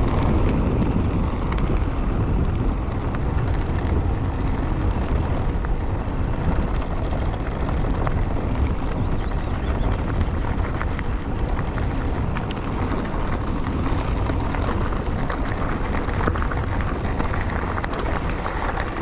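Wind noise on the GoPro microphone while riding a Calibre Triple B mountain bike along a trail, a steady low rush with frequent small clicks and rattles from the tyres and bike.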